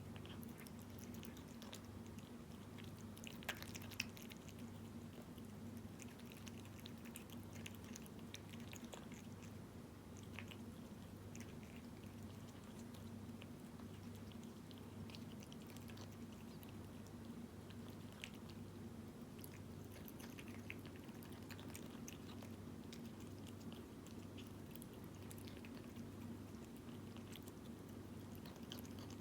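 A cat chewing wet food in jelly: faint, irregular chewing and lip-smacking clicks over a low, steady hum that pulses about once a second.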